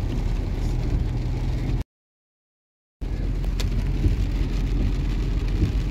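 A car driving on a rain-soaked road, heard from inside the cabin: a steady low engine and tyre drone with rain hiss over it. The sound cuts to complete silence for about a second, just under two seconds in, then picks up again, with one sharp click soon after.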